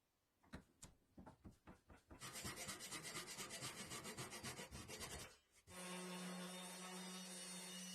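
Wood being worked by hand: a few separate scraping strokes, then about three seconds of rapid, even rubbing strokes. A small electric power tool then runs with a steady hum and starts to wind down as it is switched off.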